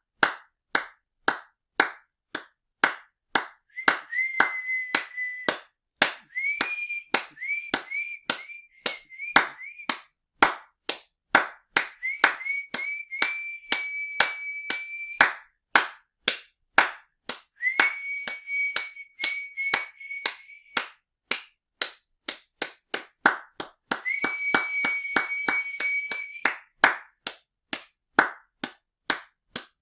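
Steady hand clapping, about two claps a second, with a high whistled note over it in several spells. Each spell starts with a quick upward scoop and is held for two to three seconds, and one spell is a run of short repeated whistles.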